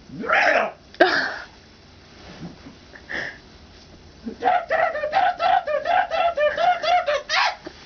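A person making weird vocal noises: two short breathy sounds at the start, then from about four and a half seconds a fast run of short voiced calls, each bending up and down in pitch, about four a second.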